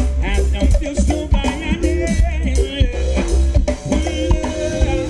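Ska band playing live through a PA system: drum kit, bass and guitars with a lead singer.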